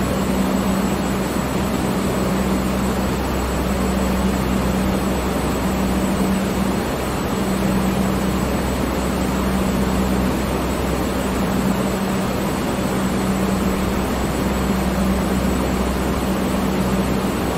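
Electric fan running steadily: an even rush of moving air under a low motor hum that swells and fades every few seconds.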